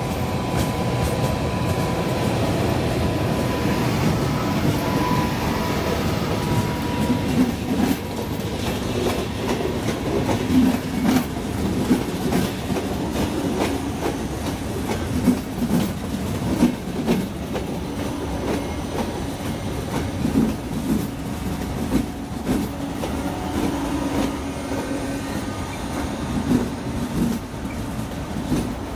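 Electric-hauled passenger train rolling past along the platform, its wheels clicking over the rail joints as coach after coach goes by. A thin steady whine is heard for the first several seconds and then fades out.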